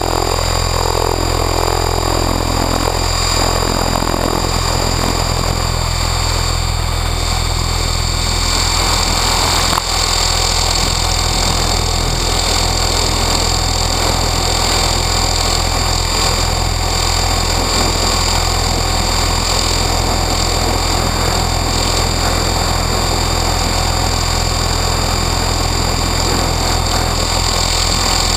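Onboard sound of a T-Rex 600E Pro electric RC helicopter, heard from its canopy-mounted camera: the brushless motor and main rotor running with a steady high whine over a low rotor drone. The pitch shifts for the first few seconds, then holds steady.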